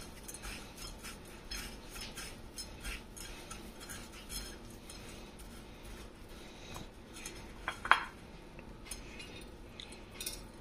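Turkey strips being pressed and turned by hand in a crunchy crumb coating on a ceramic plate: soft crunching and scraping of crumbs, with a sharp clink against the plate about eight seconds in.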